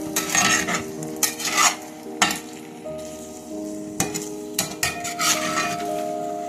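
A utensil stirring and scraping rice noodles and egg in a frying pan in several short strokes, with the food sizzling.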